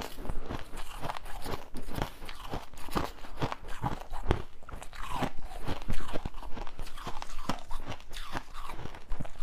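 Crushed ice being chewed close to the microphone: a rapid, irregular run of crisp crunches. A metal spoon digs into crushed ice in a steel pitcher between mouthfuls.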